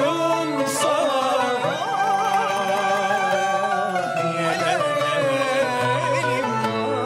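Turkish classical ensemble playing: plucked oud and kanun under a wavering, ornamented melody line, likely a voice singing melismatically.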